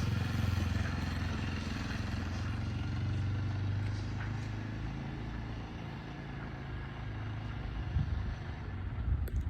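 Kawasaki KLX 230's single-cylinder four-stroke engine idling steadily after an oil change, with a few short knocks near the end.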